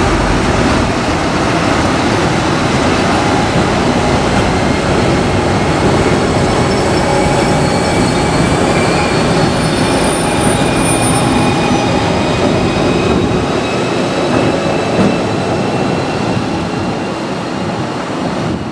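Electric locomotive hauling a train of passenger coaches past at close range: a steady rumble of wheels on rail, with faint high whining tones above it.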